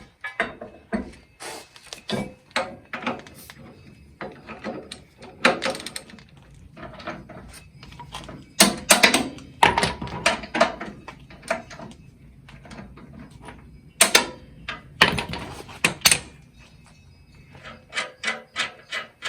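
Hand tools and steel parts being worked while a Farmall Cub's drawbar is unbolted: irregular metallic clicks and knocks, with a flurry of louder clanks about nine seconds in and loud strikes around fourteen to sixteen seconds.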